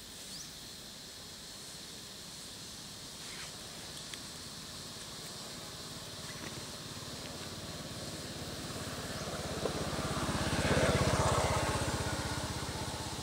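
A motor vehicle's engine passing: it grows louder over several seconds, is loudest a little before the end, then begins to fade, over a steady background hiss.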